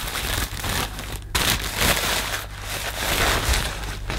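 Thin white packaging wrap crinkling and rustling as it is pulled off a handheld vacuum, louder about a second and a half in and again around three seconds.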